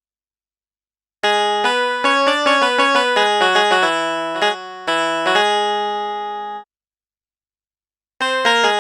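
A sampled Indian instrument from the SwarPlug 4 virtual instrument playing a quick melodic run of sharply struck notes over a held low note, stopping suddenly; a second phrase starts near the end.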